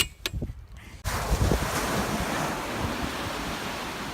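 Ocean surf with wind blowing on the microphone, a dense steady rush that starts abruptly about a second in. Before it come two sharp clicks.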